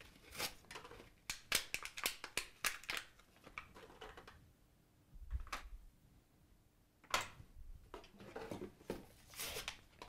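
Alkaline D-cell batteries being pushed out of a plastic blister pack, with crinkling and quick clicks. It goes quieter about four seconds in, with one dull knock, then more clicks and rustling as the cells are handled.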